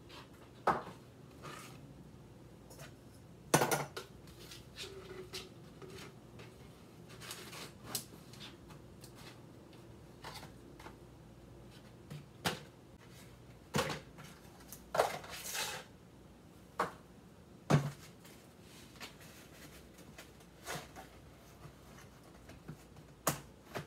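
Potted houseplants being lifted, moved and set down on a table: scattered sharp clicks and knocks of pots against the surface and a plastic crate, with a longer scrape or rustle about fifteen seconds in.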